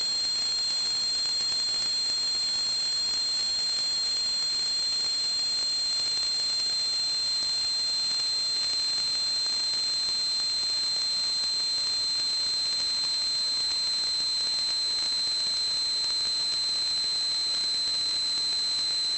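Steady high-pitched whistle over an even hiss, holding one pitch without a break.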